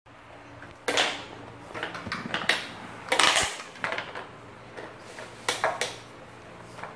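Plastic toy trucks being handled and knocked together on a tile floor: a handful of irregular clacks and short rattles, the longest a brief rattle a little after three seconds in.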